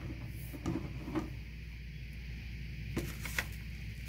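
Groceries being handled on a wooden kitchen counter: a few light knocks about a second in, then the crinkly rustle and clicks of a plastic-wrapped snack pack being picked up near the end, over a steady background hum.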